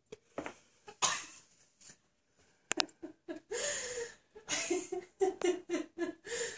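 Domestic cat hacking and gagging: a run of short coughing sounds that comes about four a second through the second half.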